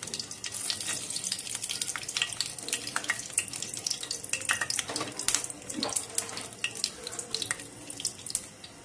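Hot oil sizzling and crackling in a pan around bay leaves and a dried red chilli as they are tempered: a steady hiss with dense, irregular pops.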